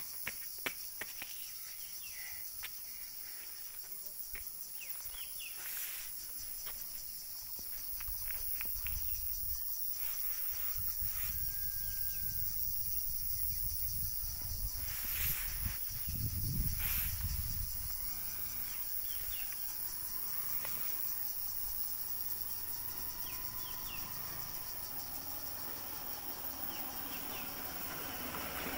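Insects droning steadily at a high pitch. Gusts of wind rumble on the microphone from about a quarter of the way in, strongest a little past the middle.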